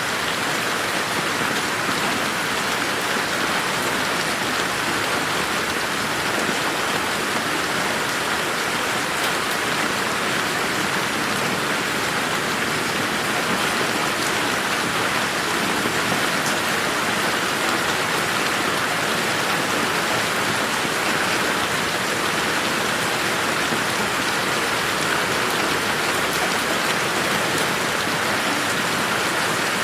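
Steady rain falling on a garden, an even hiss with the patter of individual drops, unchanging throughout.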